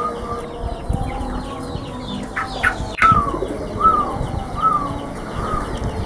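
Caged zebra doves (perkutut) calling, with chickens clucking around the yard. There are a few quick falling calls, a sharp click about halfway, then a run of four short arched calls a little under a second apart.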